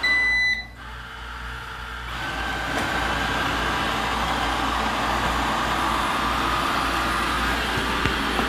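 Amarey A800 robot vacuum beeping once when a cleaning mode is selected, then its suction fan and brushes spinning up over about two seconds and running steadily.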